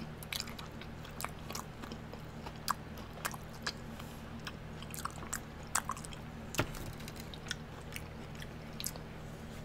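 Close-up chewing of a mozzarella corn dog: soft wet mouth clicks and smacks scattered throughout, over a steady low hum.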